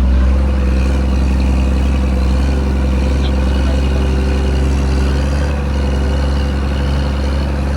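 Schlüter E7800TV tractor engine running steadily under load, a loud, even low drone, as the tractor pulls a reversible plough and furrow press in work.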